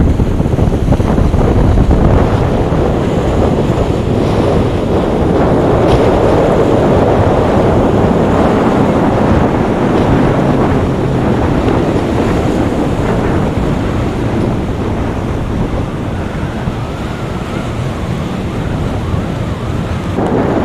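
Wind buffeting the microphone over the steady wash of ocean waves.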